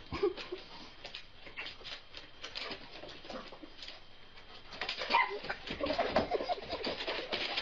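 Animal calls in short pulses, densest and loudest from about five seconds in, over a patter of small clicks.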